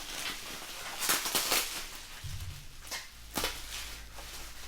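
Packaging being handled while an item is pulled out of a box: irregular rustling and crinkling, a dull thump a little after two seconds, and a few sharp knocks near the end.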